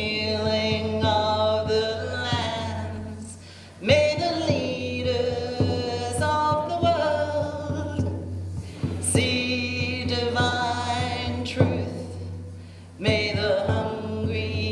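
Voices singing a slow song in long held notes over a steady low hum, with new phrases sliding up into the note about 4 and 13 seconds in.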